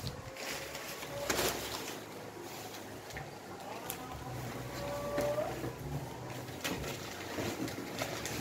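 Hands rummaging inside a cardboard box, rustling packing paper and plastic wrap, with a few light knocks as wrapped items shift. Faint drawn-out tones sound in the background near the start and again about five seconds in.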